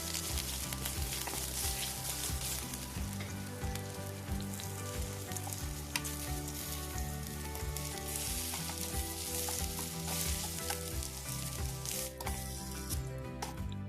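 Food sizzling as it fries in hot oil in a pan, stirred with a utensil that clicks against the pan now and then. The sizzle dies down near the end.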